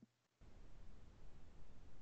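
Near silence: a brief moment of dead silence, then faint, even background hiss from an open call microphone.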